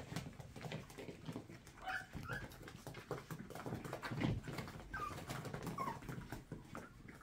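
Toy poodle puppies giving a few short, high whimpering squeaks, two about two seconds in and two more around five to six seconds in, over light scuffling and clicking of small paws.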